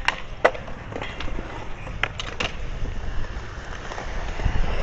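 Skateboard wheels rolling on concrete, a steady rumble with a brief hiss toward the end, broken by sharp clacks of the board, a couple near the start and three around two seconds in.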